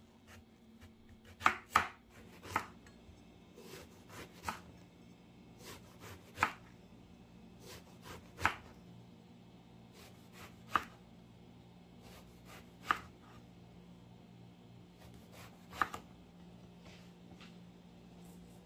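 Chef's knife slicing an eggplant into wide diagonal slices on a wooden cutting board: about nine sharp knocks of the blade on the board, roughly two seconds apart, with quieter cutting sounds between.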